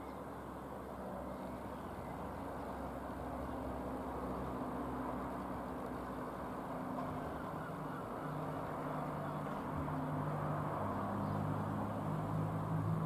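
Rockwell Commander 114 light aircraft's six-cylinder piston engine and propeller droning as it passes overhead. It is a steady hum that grows louder over the second half.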